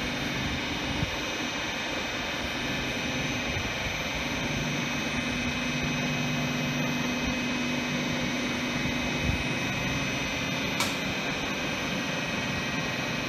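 Red DB electric multiple unit at the platform, its electric traction and auxiliary equipment giving a steady hum with several whining tones over it. A single sharp click comes near the end.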